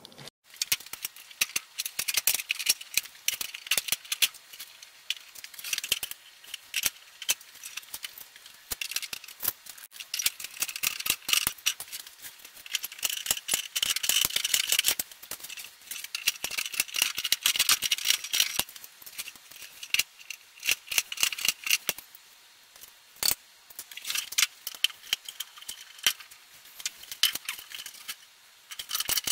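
Hand pop-rivet tool being squeezed again and again to set rivets through plastic backer plates: a fast run of metallic clicks, snaps and clatter, with short pauses between rivets.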